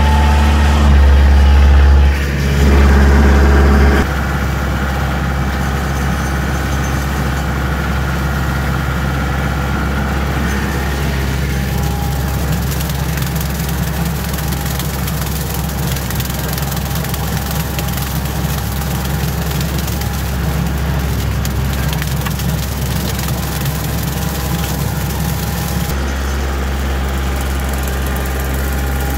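Kioti compact tractor's diesel engine running steadily while a bush hog rotary cutter mows brush and leaves behind it. The sound shifts abruptly about four seconds in and again near the end.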